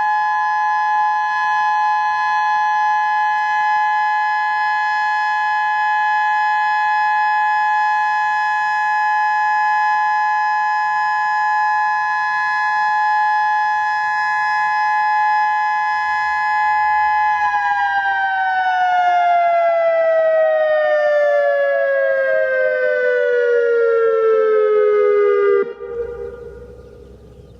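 Whelen 2016 electronic outdoor warning siren sounding a steady two-note alert tone during its monthly test. After about seventeen seconds the pitch glides steadily down for several seconds, then cuts off suddenly, leaving faint outdoor background.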